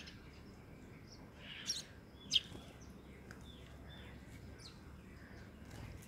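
House sparrows chirping: a few short, high chirps, the two loudest about a second and a half and two and a half seconds in, then several softer ones.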